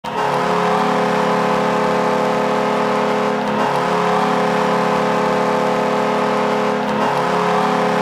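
Buffalo Sabres arena goal horn blaring: a loud, steady horn blast that starts abruptly and holds on, with brief dips in its lower tones about three and a half and seven seconds in.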